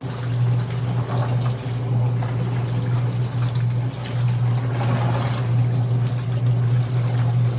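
Washing machine running with water in the tub: irregular sloshing and splashing over a steady low motor hum.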